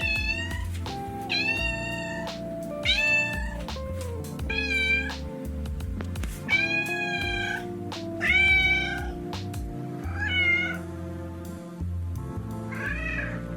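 Domestic cat making a series of about eight short, high squeaky meows, a few seconds apart, over background music.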